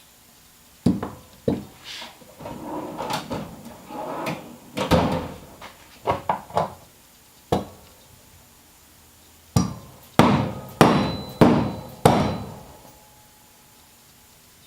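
Hand tools and metal parts knocking and clattering during bench work on an NP246 transfer case selector fork assembly, with irregular knocks, then four sharp strikes in quick succession near the end.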